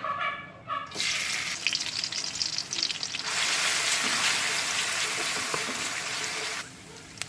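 Food sizzling in hot oil in a frying pan while it is stir-fried. The sizzle starts about a second in, gets louder about three seconds in, and dies down near the end.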